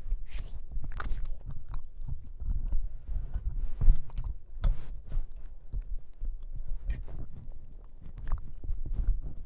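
Boston Terrier puppy chewing and gnawing on a microphone, heard right at the mic: irregular thumps, clicks and scrapes of teeth and jaws on the mic body, the loudest knock about four seconds in.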